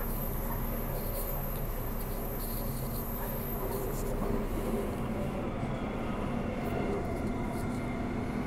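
Transperth B-series electric multiple unit running along the line, heard inside the carriage: a steady rumble of wheels on rail. About halfway through a tone comes in over it.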